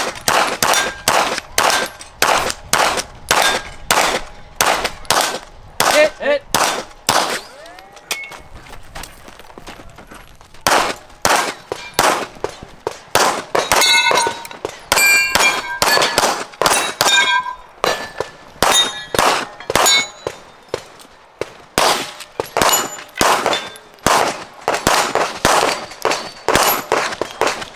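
Rapid pistol fire at steel targets: sharp shots, about three a second, many followed by the ring of a hit steel plate. The shooting stops for a couple of seconds about eight seconds in, then resumes.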